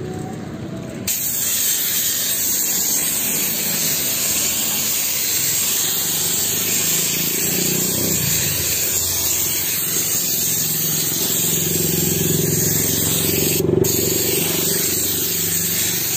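INGCO pneumatic air washing gun spraying car-shampoo water with compressed air: a loud steady hiss of air and spray that starts about a second in, broken off for a moment once near the end.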